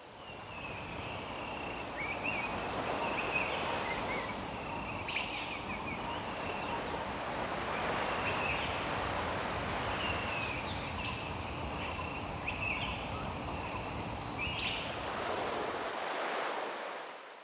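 Ocean surf washing onto a beach in a steady, swelling hiss, with short high chirps above it; the sound fades out near the end.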